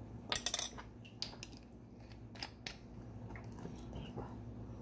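A short clatter of sharp clicks about a third of a second in, then a few scattered light ticks: small kitchen utensils being handled and set down, over a low steady hum.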